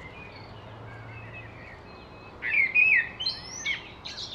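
Birds chirping and tweeting, a few faint calls at first, then a louder burst of quick chirps and whistled calls from about two and a half seconds in.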